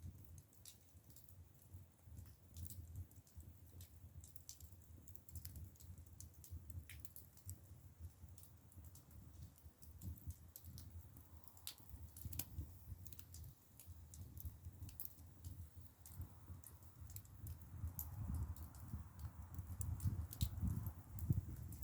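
Split bamboo firewood burning in an agungi firebox: faint, irregular crackling and popping over a low rumble.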